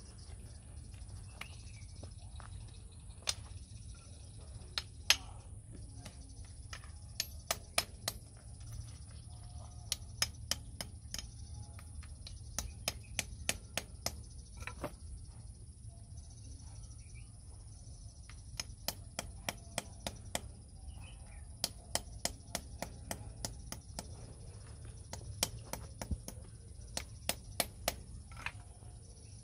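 Sharp taps and clicks of hand work on stone cladding strips, single and in quick runs of several a second, over a steady low rumble.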